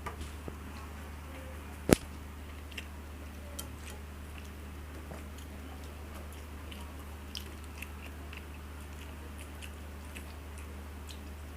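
Close-miked eating sounds of a person chewing mutton curry and rice, with small wet mouth clicks scattered throughout. There is one sharp click about two seconds in, over a steady low hum.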